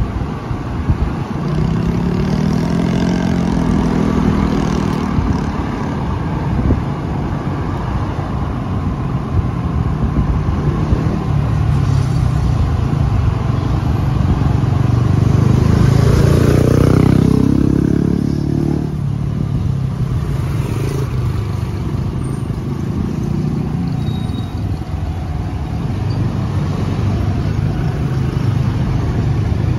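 Motorcycle engine and road noise heard from the rider's seat, the engine revving up and easing off as it rides in traffic: a short climb in pitch a couple of seconds in, and a longer, louder one about halfway through before it settles back.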